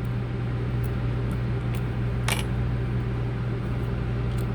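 Steady low hum of a fan at an electronics repair bench, with one sharp small click about two seconds in.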